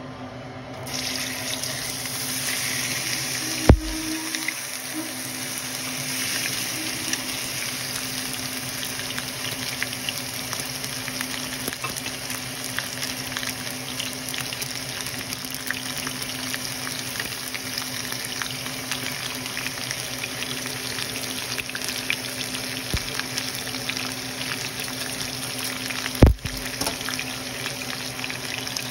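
New York strip steak searing in hot oil in a nonstick frying pan: a steady sizzle full of small pops and crackles, starting about a second in as the meat goes down. Two sharp knocks stand out, one a few seconds in and one near the end.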